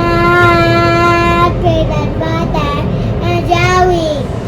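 A young child singing: a long held note, then shorter sliding notes and another held note that drops away, over a steady low rumble.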